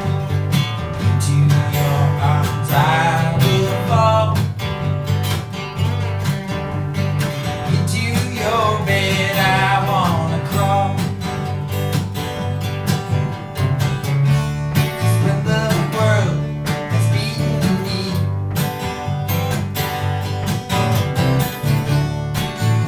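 Three acoustic guitars strummed together in a live folk song, with short sung phrases now and then.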